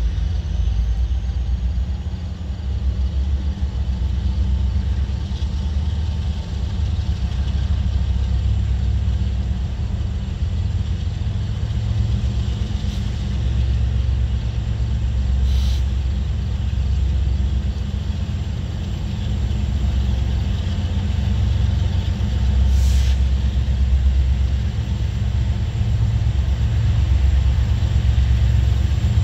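Diesel locomotives of an approaching freight train rumbling steadily, a deep low sound, with a few brief faint ticks.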